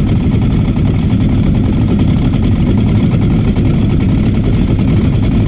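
Fishing boat's engine running steadily and loudly as the boat moves through the water.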